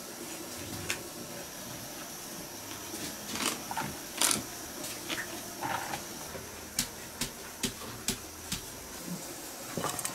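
Chinese cleaver chopping red bell peppers on a wooden chopping block: sharp knocks at an irregular pace, over a faint steady hiss.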